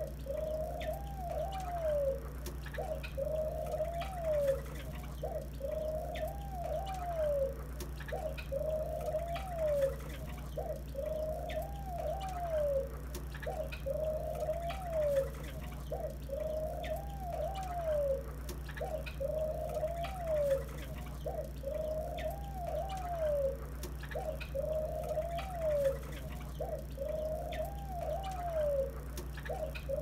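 Captive doves cooing over and over, a rolling coo that ends in a rising-then-falling note, about once every three seconds. Faint short chirps from small finches sound in between.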